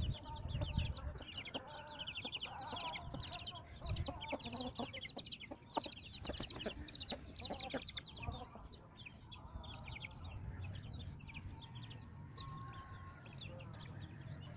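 Chickens clucking, with sparrows chirping rapidly and continuously over them. A cluster of sharp taps about halfway through.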